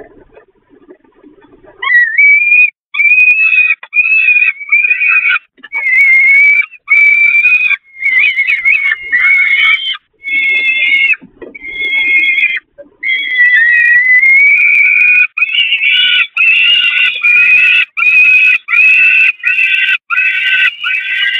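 Peregrine falcon chicks begging for food: a run of loud, high-pitched, drawn-out calls, about one a second, starting about two seconds in.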